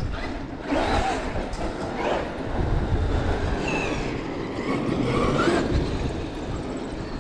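Traxxas X-Maxx electric RC monster truck running, its motor whine rising and falling with the throttle over rumbling tyre and wind noise.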